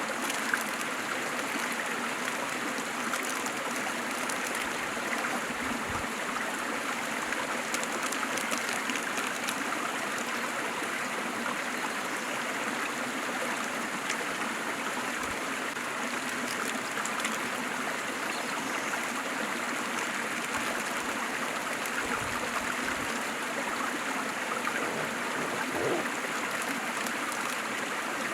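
Waterfall and stream water rushing and splashing steadily.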